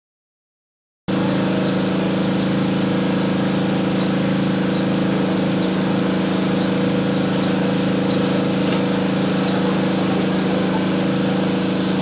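A steady mechanical hum made of several fixed low tones, starting abruptly about a second in and holding unchanged, with faint short high ticks scattered above it.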